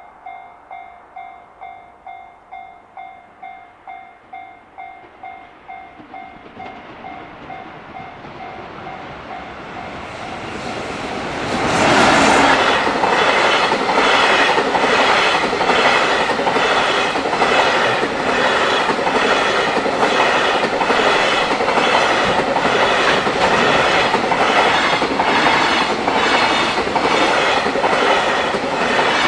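A railway level-crossing warning bell rings in a steady pulsing clang, about one and a half strokes a second. A JR Freight train then rolls in and passes close by at speed from about twelve seconds in. Its wheels clatter over the rail joints in a steady rhythm that drowns out the bell.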